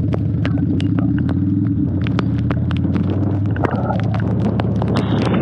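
Harley-Davidson V-twin engine of a Dyna Wide Glide running steadily while riding, with many sharp ticks scattered throughout.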